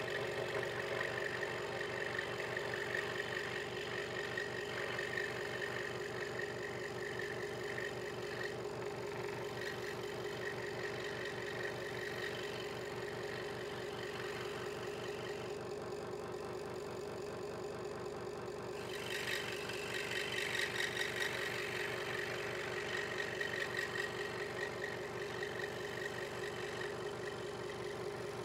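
Hegner Multicut 2S scroll saw running, its blade cutting a thin wooden piece with a steady hum and rasp. The rasp of the cut drops away for a few seconds past the middle, then comes back.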